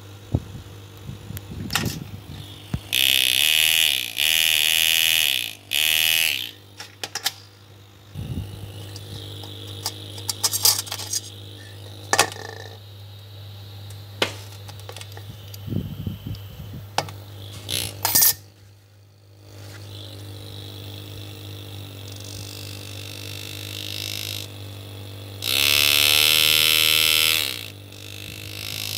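Pneumatic foot-pedal engraving handpiece, freshly rebuilt with a new body tube and piston, buzzing in bursts of a second or two as its piston hammers the graver into steel, the buzz speeding up and slowing down with the pedal; the longest bursts come a few seconds in and near the end, with short taps and clicks between them over a steady low hum.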